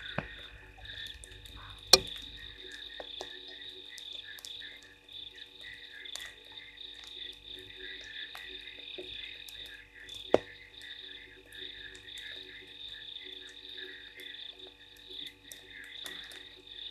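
A chorus of frogs calling continuously at night, a dense overlapping trill in two pitch bands. A few sharp clicks are scattered through it, with a loud knock about two seconds in and another about ten seconds in.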